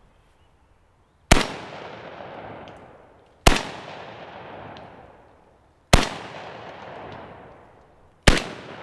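Four 12-gauge slug shots fired from a Krebs Custom VEPR 12 short-barreled semi-automatic shotgun, spaced about two to two and a half seconds apart. Each sharp report is followed by a long echo that dies away.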